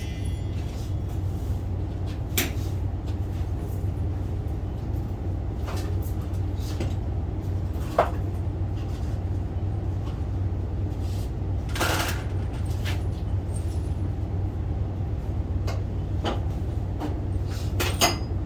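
Steady low hum with a few scattered sharp knocks and clacks, the loudest about 8 s and 12 s in.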